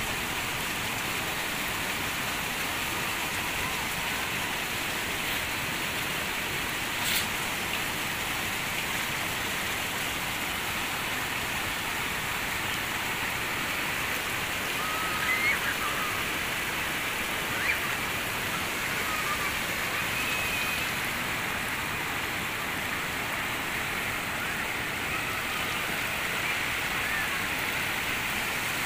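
Steady rushing hiss of muddy storm runoff flowing across a road, with a single sharp click about seven seconds in.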